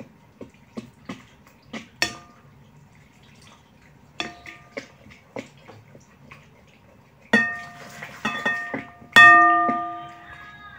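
A utensil stirring grated soap into hot water in a glass bowl, clicking and knocking against the glass to dissolve the soap. Several knocks make the bowl ring, the loudest about nine seconds in, its ring dying away over about a second.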